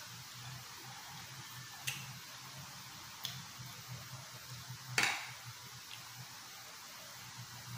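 Quiet eating sounds: hands tearing meat off a grilled T-bone, with a few small clicks and taps, the sharpest about five seconds in, over a steady low hum.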